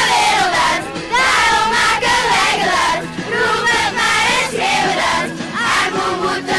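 A crowd of young children singing a song loudly together, many voices at once.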